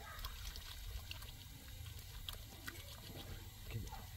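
Faint water trickling from a garden hose into a small concrete basin, with small splashes and drips.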